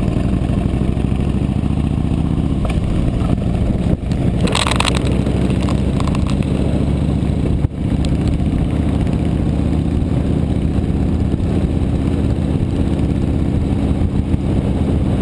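Harley-Davidson V-twin motorcycle engine running steadily under way, heard from a camera mounted on the bike, with a short hiss about four and a half seconds in.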